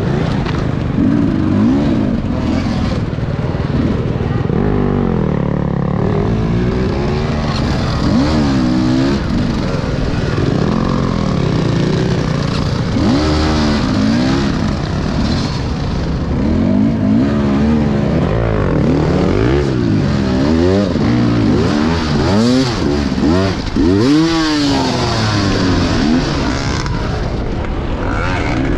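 Enduro dirt bike engine heard from on board, revving up and down again and again as the throttle is worked through rough ground, with quick rising and falling sweeps in pitch, most frequent past the middle.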